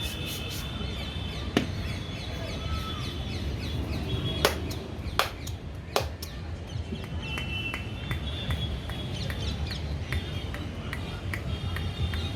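Sharp percussive strikes of a head massage, four loud ones: one about a second and a half in, then three between four and six seconds in. Underneath, small birds chirp repeatedly over a steady low hum.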